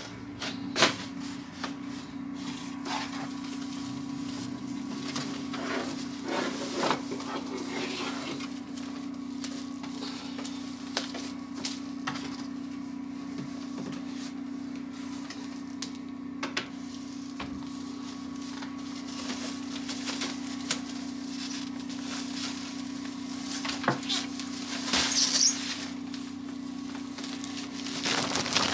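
Cardboard box and packaging being opened and handled: scattered rustles, scrapes and light knocks over a steady low hum, with a louder crinkling rustle near the end.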